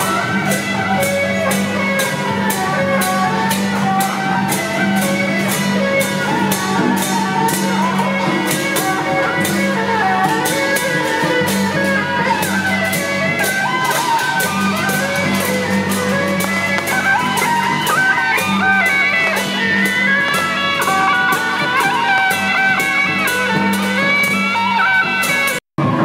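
Music with a steady beat and a moving melody over a held low note that breaks off every few seconds; it cuts out briefly just before the end.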